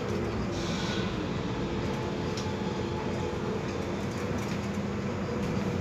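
Inside a moving Solaris Urbino 12 city bus: steady running noise of the bus underway, with a low hum. There is a brief hiss about half a second in and a few light clicks.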